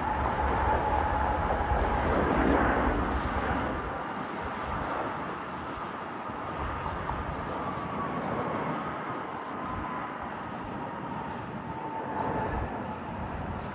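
Boeing 737 jet engines: a broad rush with a steady whine, loudest for the first four seconds, then easing off to a lower, even level.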